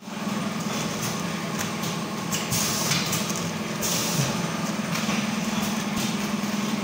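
Fully automatic auger filler packaging machine running: a steady low hum, with short bursts of hiss about once a second.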